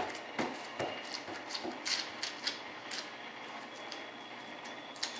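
Gloved hand pressing and smoothing fiberglass cloth into tacky resin in a wing mould: a run of small, irregular crackles and rustles, thinning out after about three seconds and picking up again near the end.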